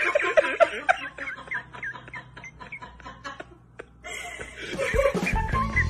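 A person laughing in quick short bursts that trail off about a second and a half in. A few faint clicks follow, and a louder low rumble starts near the end.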